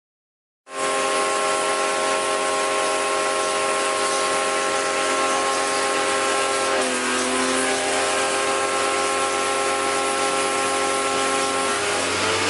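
A cleaning machine spraying with a loud, steady hiss over a motor hum made of several steady tones. It starts suddenly under a second in, and the tones sag briefly in pitch about halfway through.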